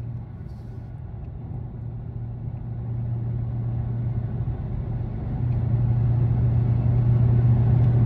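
Low steady rumble of a moving vehicle, engine and road noise, growing louder from about five seconds in.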